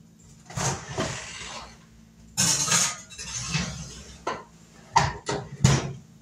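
A glass baking dish being put into an electric oven: scraping and rattling from the dish, oven rack and door, then a few sharp clanks near the end as the door is shut.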